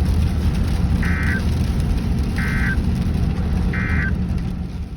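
Three short, identical warbling data bursts about 1.3 seconds apart: the EAS/SAME end-of-message code sent over NOAA Weather Radio at the close of a severe thunderstorm warning. A steady low rumble runs underneath.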